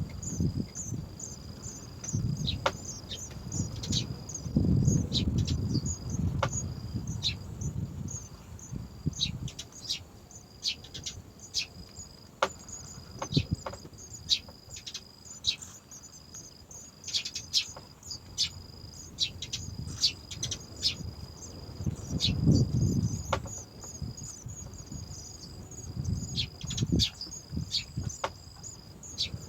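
Insects trilling in repeated high, steady phrases of one to two seconds each, with many short sharp clicks or chirps scattered through them. A low rumble comes in a few seconds in and again past twenty seconds.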